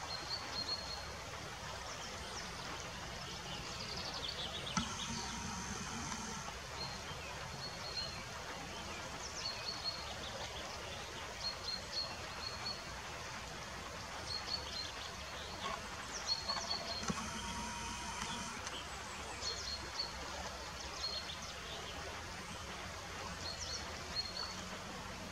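Outdoor riverside ambience: an even background hiss with short, high-pitched chirping calls repeated every second or so, and two brief steady hums about five seconds in and near seventeen seconds.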